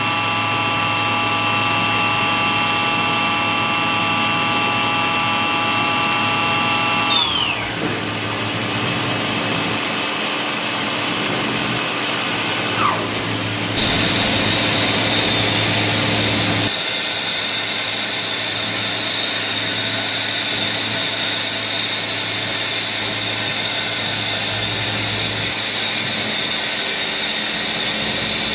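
Makino A71 horizontal machining center running, its spindle giving a steady multi-toned whine over a constant hiss. About seven seconds in the whine glides down and stops as the spindle slows. From about fourteen seconds a single higher steady whine takes over.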